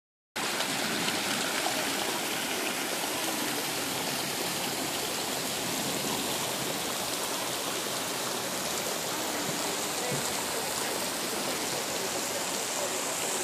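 Creek water tumbling over boulders into a pool: a steady rushing splash.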